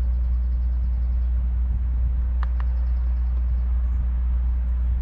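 A steady low mechanical hum, like an engine running at idle, with a faint click about two and a half seconds in.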